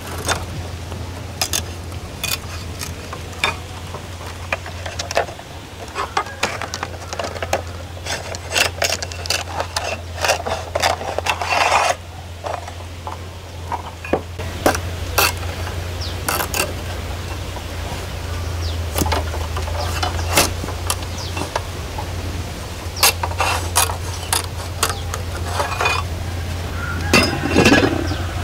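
A knife splitting a short stick lengthwise into thin strips: irregular sharp cracks, clicks and scrapes, over a steady low hum.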